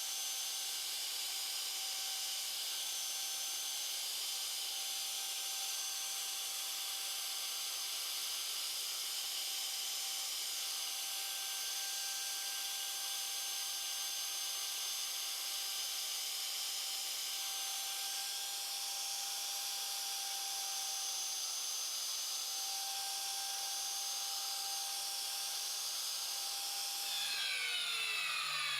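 Surface grinder's abrasive wheel grinding a radius on a steel forging tool: a steady high hiss with a steady whine as the wheel is worked up and down the part. Near the end the wheel's whine falls in pitch as it spins down.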